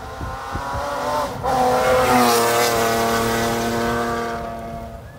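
A rally car at speed on a gravel stage, coming up and passing close by: the engine note climbs, breaks off briefly about a second and a half in, is loudest with a rush of tyre and gravel noise as the car goes past about two seconds in, then drops in pitch and fades as it goes away.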